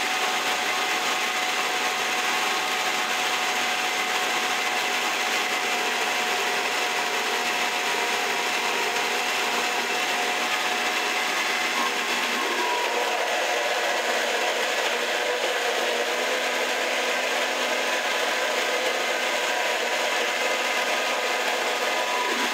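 High-speed blender motor running steadily at speed, blending a thick, creamy sauce. About halfway through its tone shifts slightly with a brief rise in pitch.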